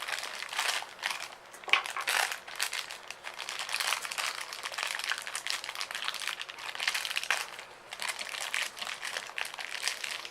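Toy packaging being handled and pulled open by hand: a continuous run of small crackles with uneven swells and dips.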